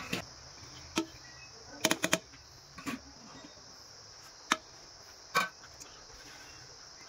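Sharp clinks and taps of a steel plate and utensils against a metal cooking pot as rice is layered and spread: a quick cluster of four about two seconds in and single taps before and after, over a steady high hiss.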